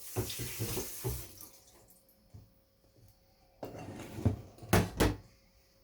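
Chopped ingredients being stirred and mixed, a wet squelching and scraping with quick small clicks, followed near the end by a few sharp knocks against the dish.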